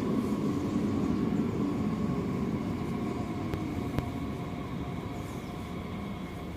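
DB Class 423 electric multiple unit running into the station, its rumble and steady electric whine gradually fading as it slows, with a single sharp click about four seconds in.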